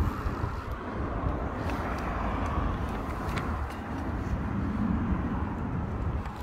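Steady outdoor background noise: a low rumble with a hiss over it, and a few faint clicks.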